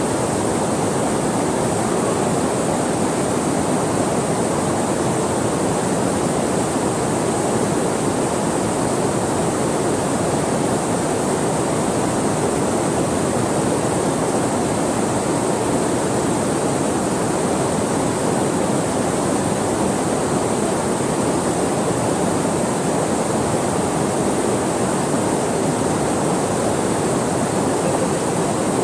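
Steady, unbroken rushing of flowing river water, with a thin high hiss over it.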